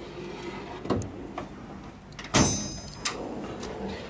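Metal tool chest drawers sliding shut and open, with knocks and one loud metallic clank about two and a half seconds in that rings on briefly.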